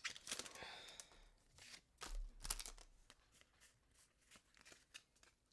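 Faint crinkle and rustle of a freshly torn-open foil Pokémon booster pack wrapper and its trading cards being handled, with a few soft ticks in between.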